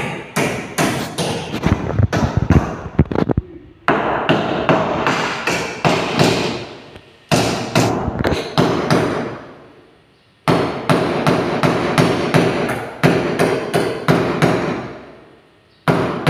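Rapid hammer blows on the ceiling framing as old ceiling boards are knocked out, about three a second, in several runs that stop and start again suddenly. After each run the sound dies away in a long echo.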